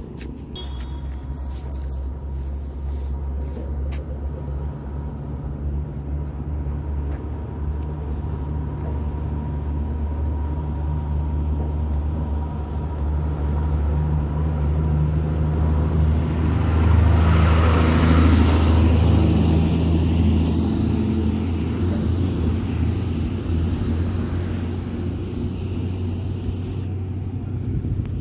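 Low, steady rumble of a motor vehicle engine running. It grows louder to a peak about two-thirds of the way through, then eases off.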